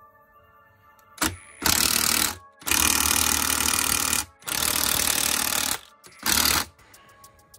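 Power impact wrench hammering bolts down on an R34 Skyline's differential housing in five bursts: a short one, then four longer ones, the longest about a second and a half.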